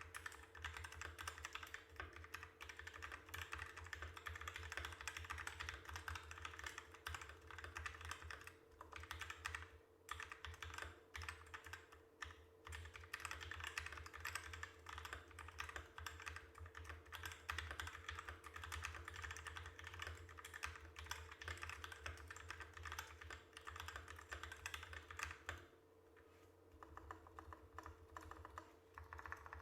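Typing on a Nisuta GZ61 60% mechanical keyboard with Krytox-lubed Outemu Black linear switches on custom 40 g springs: a steady run of key clicks with a few short pauses and a longer one near the end, over a faint steady hum.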